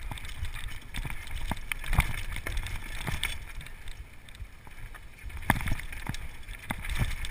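Downhill mountain bike clattering over rough trail: a run of sharp knocks and rattles from the chain and frame as the tyres hit rocks and roots, over a low rumble of tyre and wind noise. The hardest knocks come about two seconds in and again about five and a half seconds in.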